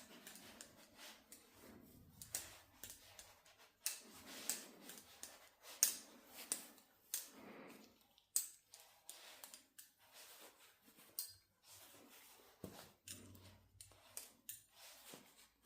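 XDYY Kraken V3 steel balisong (butterfly knife) being flipped: an irregular run of light metal clicks and clacks as the handles and blade swing on their pivots and knock together, with a few sharper clacks.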